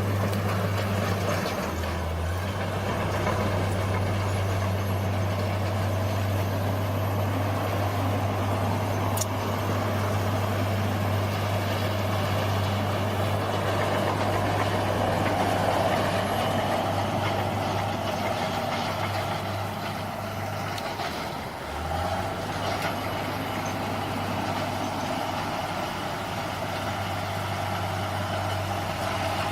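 Bulldozer's diesel engine running steadily under load, a low even drone with clattering machinery noise over it. About three-quarters of the way through the engine note dips briefly, then settles at a slightly different pitch.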